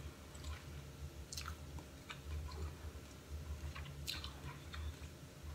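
A person chewing a mouthful of food close to the microphone, with small mouth sounds and two sharper clicks, over a low steady hum.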